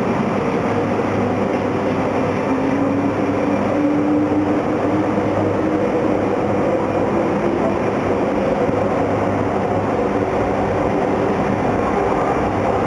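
A 200 Series Shinkansen train running past on the station tracks: a steady, loud rumble of wheels and running gear. A faint whine rises slightly in pitch between about two and five seconds in.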